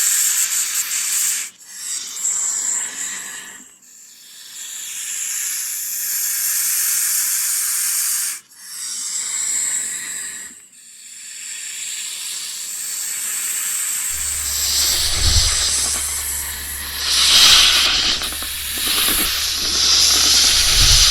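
Snake hissing: a series of long hisses, each a few seconds long, separated by brief breaks. In the second half the hisses grow louder, and a low steady hum sits underneath them.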